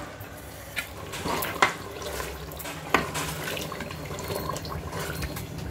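Mutton pieces in thin gravy being stirred in an aluminium pressure cooker: liquid sloshing, with a few sharp knocks against the pot, two of them loudest.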